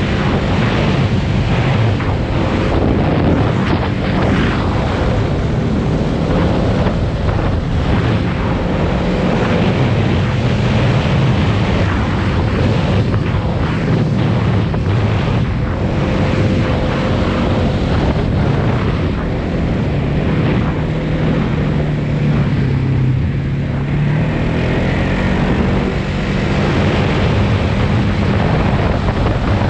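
Polaris Sportsman 570 ATV's single-cylinder engine running as the quad drives over a rough dirt track, its note rising and falling with the throttle. Wind buffets the helmet-mounted microphone throughout.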